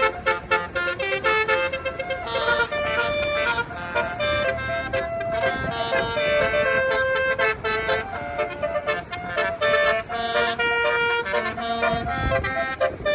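Tour bus's multi-note 'telolet basuri' air horn playing a tune: a run of held notes stepping up and down in pitch.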